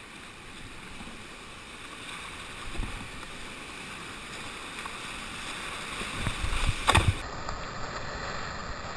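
Whitewater rapid rushing around an open canoe as it runs down through the waves, the noise slowly growing. A few low knocks and splashes on the hull come through, loudest about seven seconds in.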